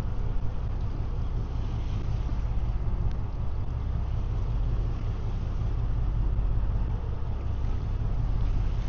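Fishing boat's engine running steadily at sea: an even low hum under a haze of wind and water noise.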